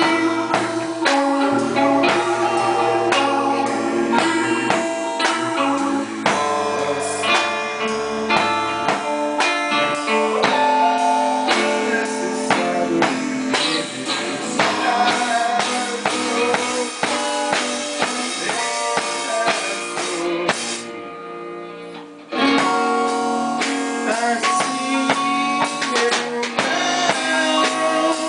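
Rock band playing live in a rehearsal room: guitars, bass guitar and drum kit with cymbals. About twenty seconds in the cymbals drop out and the music thins and fades for a moment, then the full band comes back in at full level.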